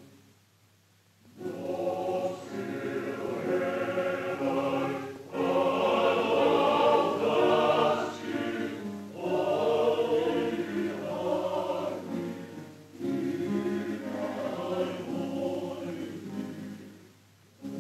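Choir singing in long phrases of about four seconds each, with short breaks between them; it begins after about a second of near quiet.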